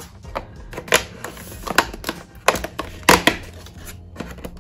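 Handling of a cardboard advent-calendar drawer and the small cards inside: a series of sharp taps and clicks, about five in four seconds, the loudest a little past the middle.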